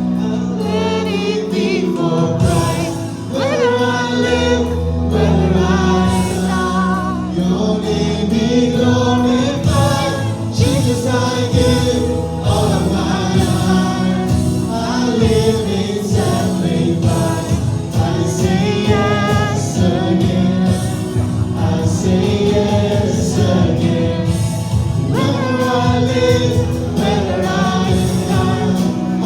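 Live church worship band and singers performing a contemporary Christian worship song, with sustained bass and a steady drum beat under the voices.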